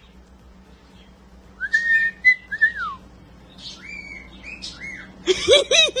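Cockatiel whistling: a few clear notes that rise and fall, a pause, then shorter chirpy whistles, and a louder rapid warbling burst near the end.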